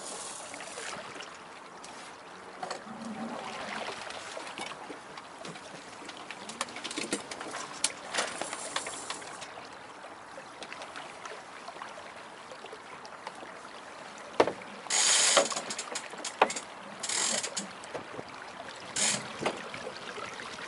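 Sailboat deck hardware ratcheting, the clicking pawls of a winch or ratchet block as lines are worked. Scattered light clicks and creaks give way to three short runs of rapid clicking in the second half.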